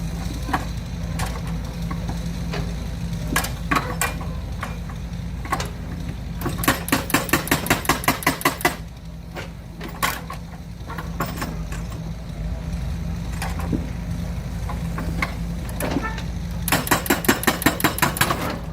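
Toy excavator's small electric motor humming, with two runs of rapid, even clicking from its plastic gears, about five clicks a second, plus scattered single clicks.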